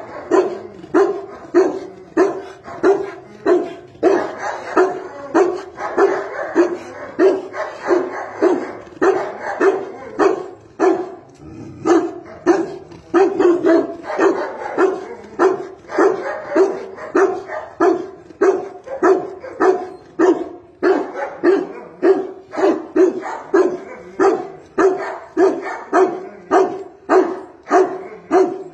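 Tibetan mastiff barking over and over in a steady rhythm, a little over one bark a second, with a low, deep-pitched bark.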